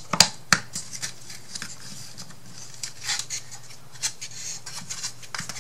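Thin wooden kit pieces handled and fitted together by hand: a few sharp clicks and knocks in the first second as slotted parts are pushed into place, then scattered smaller taps with wood scraping and rubbing on wood.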